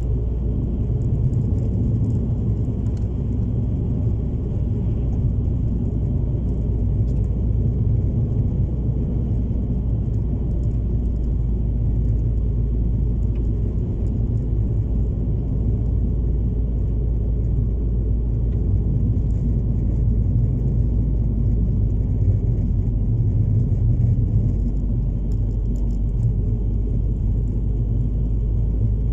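Steady low rumble of a car's engine and tyres heard from inside the cabin while driving along at an even speed.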